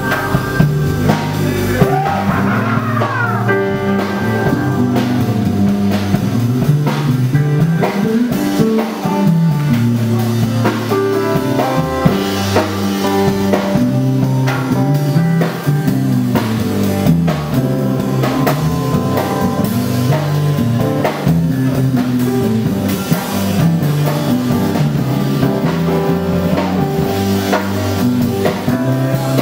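Live rock band playing an instrumental passage: a moving electric bass line, drum kit, electric guitar and keyboards.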